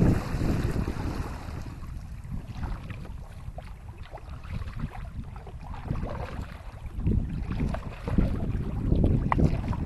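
Wind buffeting the microphone, strongest at the start and again near the end, with small water splashes and drips from kayak paddling.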